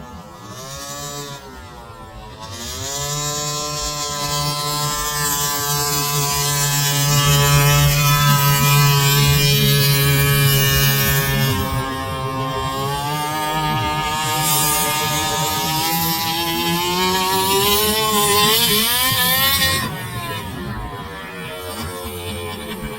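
Small two-stroke petrol engines of large-scale RC cars revving hard, the pitch climbing and falling as the throttle is worked and the cars run. The engine sound is loudest through the middle and drops back near the end.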